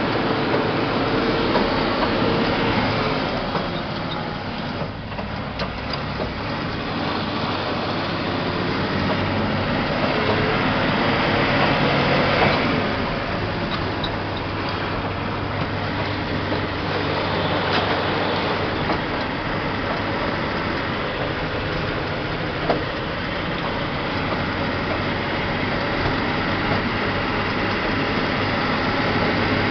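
Truck engine running on the move, heard from inside the cab, with a steady drone and road noise. The engine noise drops briefly about five seconds in and swells again around twelve seconds; a single sharp click sounds near the end.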